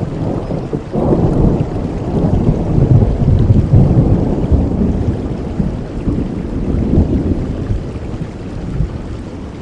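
Thunder rolling over steady rain: a low rumble swells about a second in, peaks a few seconds later and slowly dies away while the rain keeps falling.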